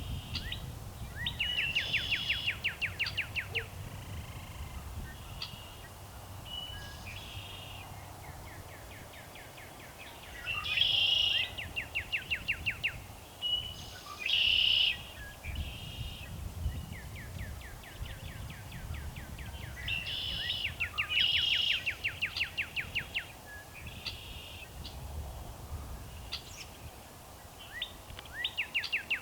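Male northern cardinal singing: four loud songs about nine seconds apart, each a slurred whistle followed by a fast run of short repeated down-slurred notes, with quieter runs of the same notes in between.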